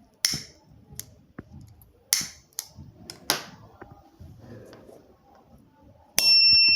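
A few short scratchy bursts and clicks, then about six seconds in the buzzer of a homemade breadboard smoke detector starts a loud, steady, high-pitched tone: the smoke sensor has detected smoke and set off the alarm.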